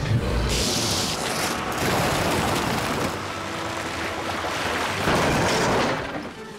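Cartoon sound effects of a heavy truck's wheels spinning on ice as it hauls a boat on a tow line, then the boat's hull scraping and sliding over the ice: a steady rushing, grinding noise.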